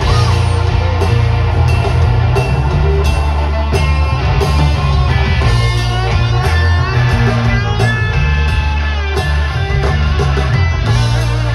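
Live rock band playing without vocals: electric guitar with bending notes over a heavy bass line and drum kit.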